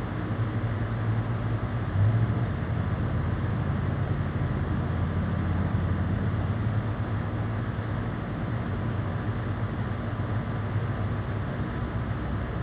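Steady low mechanical hum of a running motor, over a constant noisy hiss, with a brief rise in level about two seconds in.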